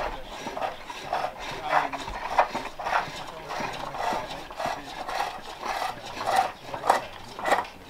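Several pole lathes turning bowls, the hook tools shaving the wood in repeated rasping cuts roughly every half second, with a few sharper knocks among them.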